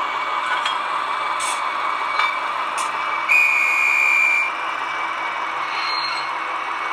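Fully digital Roco H0 model of a ČD 'Taucherbrille' diesel locomotive running along the track, with a steady running and engine sound. Its horn sounds once near the middle for about a second.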